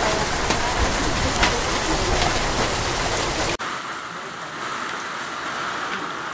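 Heavy rain pouring down, with run-off streaming off a roof edge and scattered sharp drop impacts. About three and a half seconds in it cuts abruptly to the quieter rush of muddy floodwater flowing.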